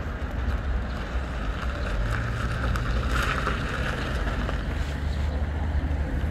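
Steady low engine and road rumble of a moving vehicle, with wind noise over it and a brief louder rush about three seconds in.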